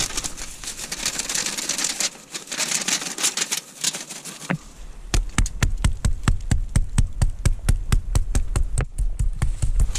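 Steel tape measure being pushed and worked inside a hollow log, its blade scraping and rattling against the wood among dry leaves. About halfway through this turns into a run of quick, evenly spaced taps, about five a second.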